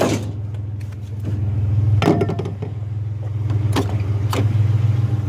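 Pickup truck engine running steadily at a low hum, with a few sharp knocks or clanks over it.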